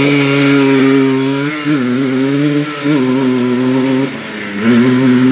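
1991 Yamaha Blaster's air-cooled 200cc two-stroke single running hard at high revs under full throttle on a timed lap. The pitch dips briefly and picks back up three times, about one and a half, three and four seconds in.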